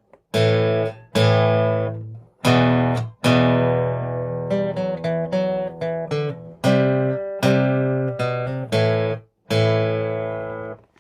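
Guitar playing a riff: chords struck about once a second and cut off short, with a run of quick single notes in the middle.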